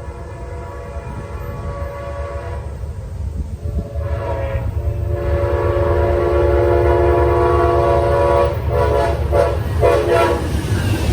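Air horn of a triple-headed Amtrak diesel train played as a horn show: a long blast, a short pause, another long blast, then a quick run of short toots about three-quarters of the way through. Under it the deep rumble of the locomotives grows louder as the train approaches, turning to the noise of the train going by near the end.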